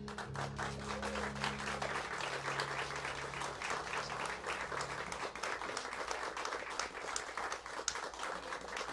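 Audience applauding steadily after a song, with a low held note from the band underneath that stops about halfway through.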